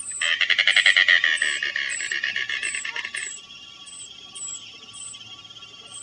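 Anhinga giving its call: a fast rattling series of croaking pulses, loudest about a second in and ending a little after three seconds.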